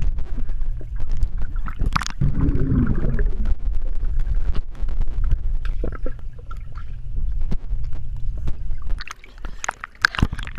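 Pool water sloshing and splashing as people move about in it, with scattered sharp splashes over a steady low rumble.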